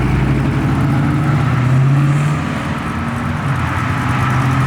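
Cars pulling slowly out of a lot, each with a low, steady engine note. One swells to its loudest about two seconds in and then fades, and another engine note comes in near the end.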